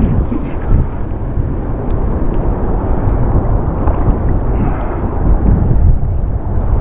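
Loud, steady rumble of wind buffeting a head-mounted camera's microphone, mixed with surf washing around a wading angler.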